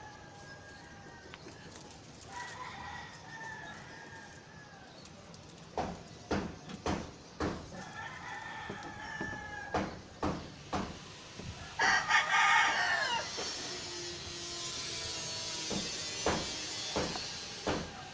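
Roosters crowing three times, the last crow near the middle much louder than the others, with scattered sharp knocks before it and a steady hiss afterwards.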